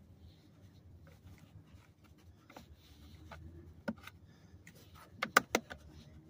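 Light rubbing and scattered clicks of a part being worked down into its two slots by hand, with a quick run of sharper clicks about five seconds in.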